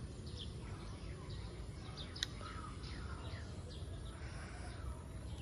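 Birds chirping faintly and intermittently, a scatter of short falling calls, over a steady low outdoor rumble. A single sharp click sounds about two seconds in.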